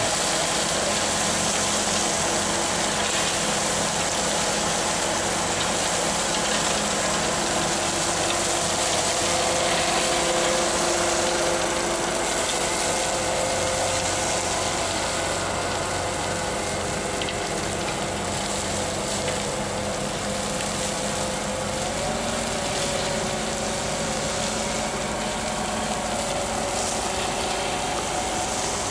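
Conveyor-floor dump trailer unloading: the conveyor drive running steadily with a continuous mechanical clatter, soil pouring off the rear end, and the truck's engine running under it.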